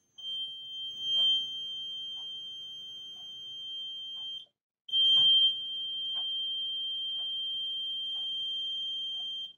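Small battery-powered electronic buzzer sounding a steady high-pitched tone because current is flowing through a person's body across its two wires. The tone breaks off for about half a second just over four seconds in, then sounds on again.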